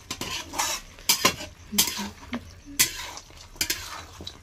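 A metal spatula scraping and clanking against a kadhai as chicken is stirred while it fries, with a light sizzle beneath. There are about seven strokes at an irregular pace.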